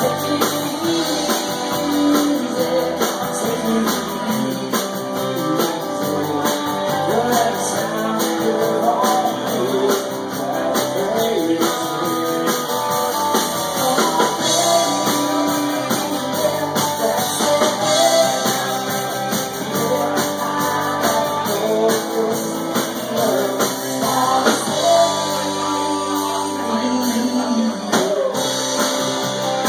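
Live rock band playing with acoustic guitar, electric guitar, bass guitar and drum kit, with a male lead voice singing over it.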